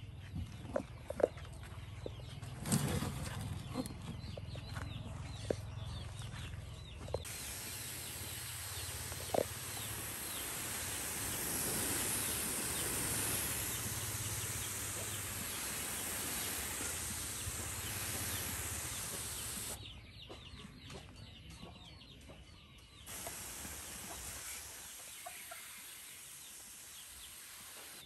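Chickens clucking in the background, with a few light knocks in the first ten seconds. A steady hiss starts suddenly about seven seconds in and cuts off about twelve seconds later.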